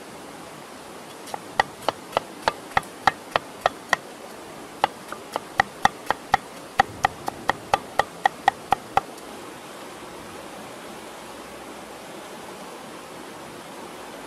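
Cleaver chopping pineapple on a chopping board: a run of sharp knocks, about three a second, with a short pause partway through, stopping about nine seconds in. A steady background hiss runs underneath.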